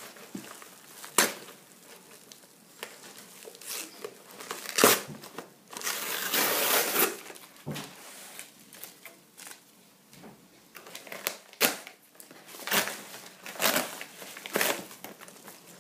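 Hands tearing open and crumpling a padded mailing envelope: irregular crinkling and ripping, with a longer tear about six seconds in and several sharp crackles.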